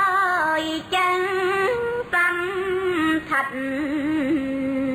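Khmer smot: a solo female voice chanting Buddhist verse unaccompanied, in long held notes with wavering ornaments. It breaks off briefly three times between phrases.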